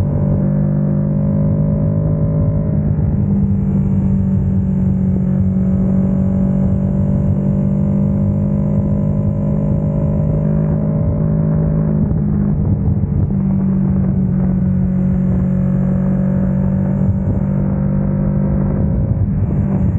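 Kawasaki Ninja 650's parallel-twin engine running through an Ixil RC Black Edition aftermarket exhaust, holding a fairly steady note with a brief change about twelve seconds in.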